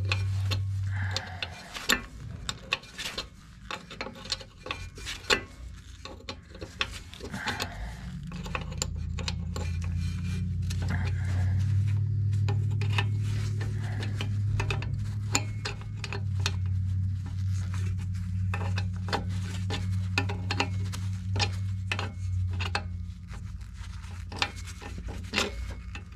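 Steel open-end wrench clinking and scraping on brake line fittings as they are threaded and snugged into a new rear drum-brake wheel cylinder: many sharp, irregular metallic clicks. A low steady hum runs underneath, swelling in the middle of the stretch.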